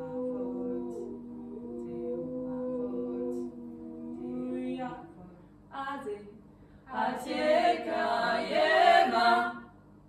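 A small group of voices singing a cappella, holding long steady notes in harmony that fade out about five seconds in. A short louder passage of voices follows near the end and stops abruptly.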